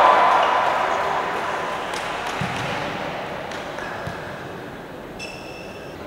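Crowd noise in a sports hall dying away after a point, with two faint volleyball bounces, then a short referee's whistle about five seconds in, signalling the serve.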